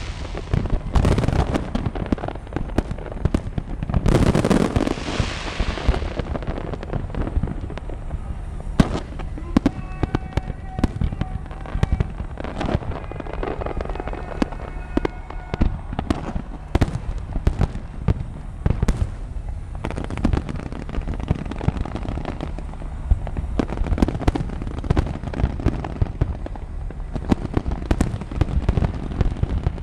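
Large fireworks display: a rapid, overlapping barrage of shells bursting with bangs and crackles. There are heavier rumbling booms about a second in and again around four to five seconds in.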